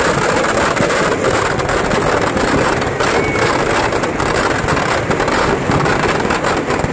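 Firecrackers packed inside a burning Dussehra effigy going off in rapid succession, a dense crackling and popping that merges into a steady rushing din.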